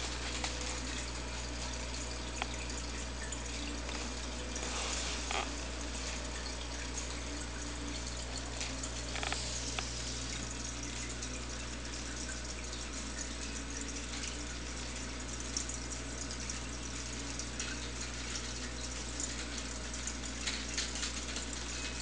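Aquarium filter pump running: a steady wash of circulating water over a constant low hum, with a few faint ticks.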